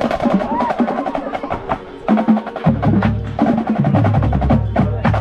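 A drum corps playing: rapid percussion strokes with a brass melody. Low brass comes in loudly about two and a half seconds in and drops lower again about four seconds in.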